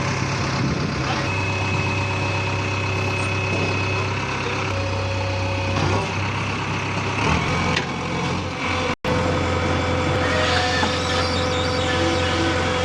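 JCB 3DX backhoe loader's diesel engine running steadily with a low hum. The sound cuts out for an instant about two-thirds of the way through.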